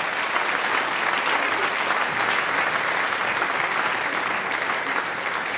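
Theatre audience applauding, a steady dense clapping that eases off slightly near the end.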